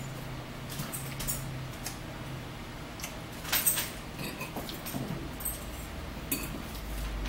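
Metal forks clinking and scraping against ceramic bowls and plates, a few light clicks here and there, the sharpest about three and a half seconds in, with chewing.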